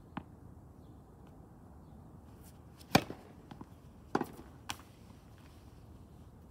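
Sharp, separate knocks of tennis balls being hit and bouncing, the loudest about three seconds in and another strong one a little after four seconds, with smaller ones between.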